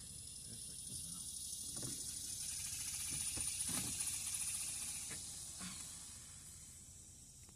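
High-pitched insect buzzing that swells to its loudest about halfway through and then fades, with a few faint knocks underneath.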